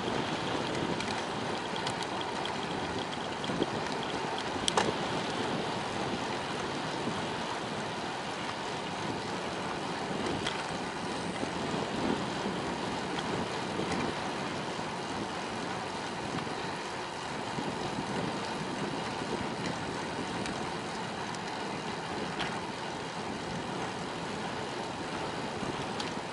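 Steady wind and rolling noise from a bicycle ride on a paved path, with a few sharp clicks.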